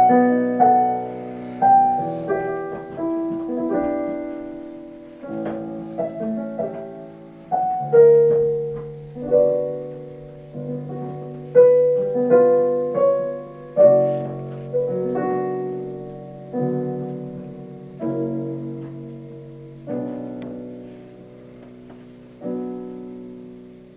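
Piano playing a slow piece: single notes and chords struck every second or two, each left to ring and fade before the next.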